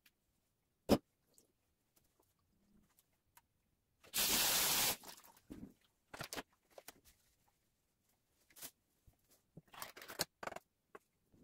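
Handling noises around a pineapple tin. There is a sharp click about a second in, then a loud noisy sound lasting about a second. After that come scattered light clicks and clinks near the end, as pineapple rings are taken out of the tin.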